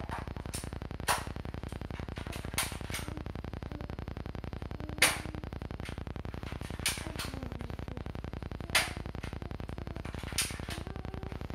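M16-style BB pellet gun firing repeatedly out of an open window: six sharp snapping shots about every one and a half to two seconds, some followed by a quieter click. A steady low hum runs underneath.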